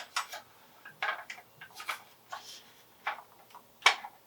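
Irregular clicks and knocks of a full-metal airsoft M16 being handled, its metal and plastic parts tapping and clicking as a part is worked at, with one sharper knock near the end.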